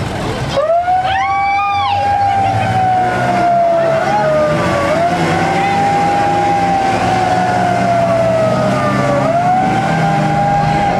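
A siren wailing: it climbs quickly, then sinks slowly over a few seconds, three times over. Under it runs the low drone of boat engines.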